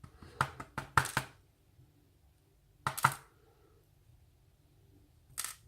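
Small metal lock pins clicking and clinking as they are set down from a disassembled pin-tumbler cylinder: a quick run of clicks in the first second, then single clicks about three seconds in and near the end.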